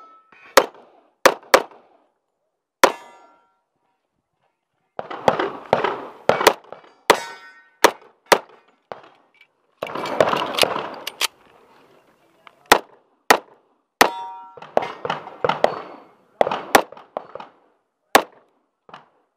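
Rock Island Armory 1911 pistol firing in quick pairs and short strings, about a dozen and a half shots in all, with pauses of a few seconds between strings. A brief metallic ring follows some shots.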